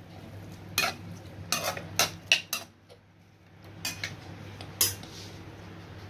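A perforated steel slotted spoon scraping and clinking against a kadhai as sliced onions are stirred in hot oil to brown them. There is a quick run of strikes in the first three seconds, then two more about four and five seconds in.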